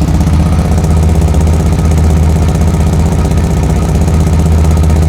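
2004 Chevy Blazer's 4.3-litre V6 idling steadily and loudly through a leaking exhaust. The leak is at the muffler joint, where a broken bolt has been replaced but the gasket is gone, so the exhaust stays pretty noisy.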